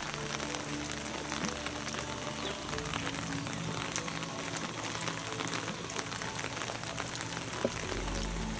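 Background music with held tones, over a steady patter of rain on wet pavement.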